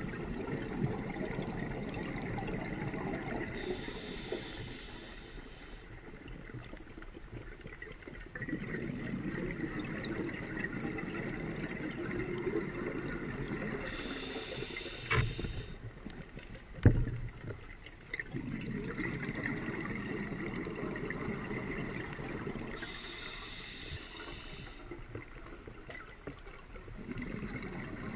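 Scuba diver breathing through a regulator underwater: three hissing inhalations, about nine to ten seconds apart, each followed by a long low bubbling of exhaled air. Two sharp knocks come in the middle, about two seconds apart, the second one loud.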